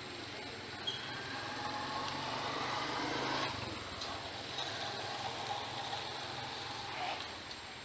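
A motor vehicle engine running, growing louder to a peak about three and a half seconds in, then dropping away and returning more faintly, over a steady low hum.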